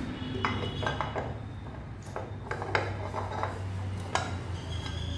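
Metal parts and hand tools clinking against each other as tappet covers are fitted back onto a motorcycle cylinder head: a series of sharp, irregular clinks over a steady low hum.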